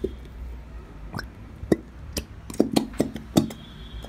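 Handling of a plastic glue squeeze bottle over a plastic tub: a run of short clicks and taps as the clear glue is poured out, over a steady low background rumble. A faint thin high tone comes in near the end.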